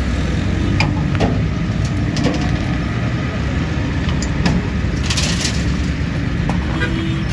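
Steady low rumble of a running vehicle engine or passing road traffic, with scattered sharp clicks and knocks and a brief hiss about five seconds in.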